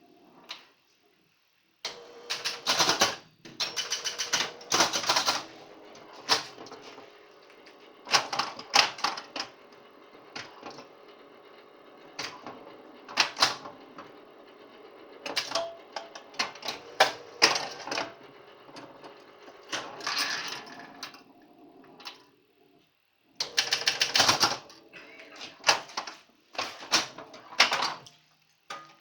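1972 Bally Space Time electromechanical pinball machine in play: bursts of rapid mechanical clacking from its flippers, bumpers, relays and score reels, broken by short lulls.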